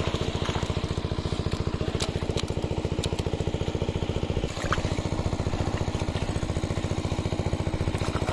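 A small engine running steadily with an even, fast chugging beat, with a few faint clicks over it.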